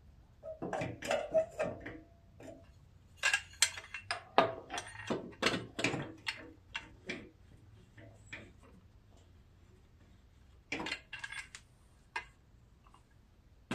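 Metal clicking and clinking as a mower's electric PTO clutch is worked onto the engine crankshaft, its key and pin being lined up. The clicks come in irregular clusters, with a short metallic ring about a second in, a lull past the middle, and a few more clicks near the end.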